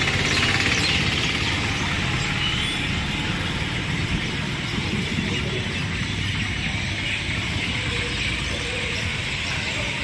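Outdoor traffic ambience: a steady low rumble and hiss of vehicles around a road, with a few faint high chirps near the start.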